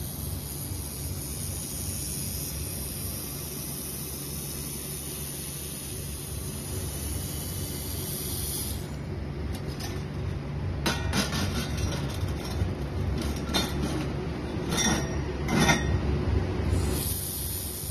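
Handheld laser welding machine running while welding stainless steel tube: a steady low hum with a high hiss. Between about halfway and near the end the hiss drops away and irregular crackles and clicks come through.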